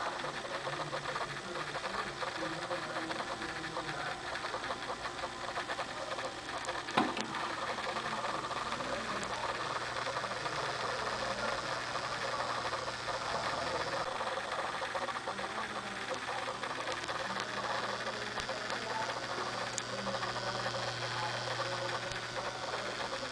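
Aquarium pump humming steadily with a low hum and hiss, with a single sharp click about seven seconds in.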